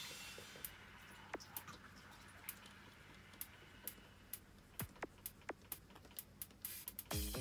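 Faint, irregular light clicks and taps of a plastic spatula rubbing a cut-out sticker down onto a model railway layout board. Background music comes back in near the end.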